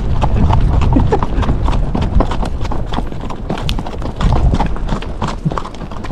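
Hooves of saddle horses and a pack mule clip-clopping on a hard dirt-and-gravel road, many overlapping footfalls in an uneven patter.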